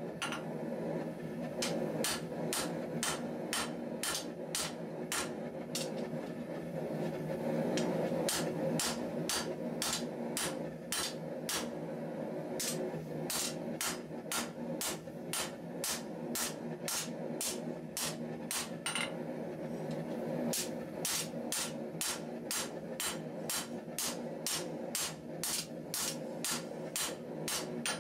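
Forging hammer striking a red-hot steel knife blade on an anvil in a steady rhythm, about two blows a second, with a short pause about two-thirds of the way through. A steady hum runs underneath.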